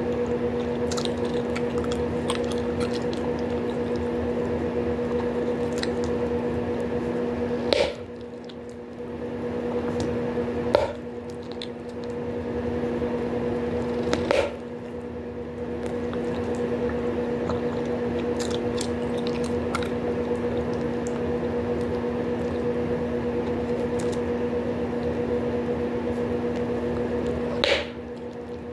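Bubblegum being chewed with wet squishing and small clicks, and gum bubbles popping sharply four times: near 8, 11 and 14 seconds and again near the end. A steady background hum runs underneath throughout.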